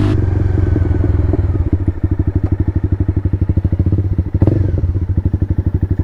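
Honda motorcycle engine dropping off as the bike rolls to a stop, then idling with an even, fast pulse of about ten to twelve beats a second. A single sharp knock about four and a half seconds in.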